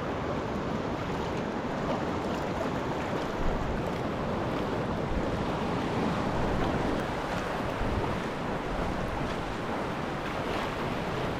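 Steady sea noise of waves washing, with wind buffeting the microphone.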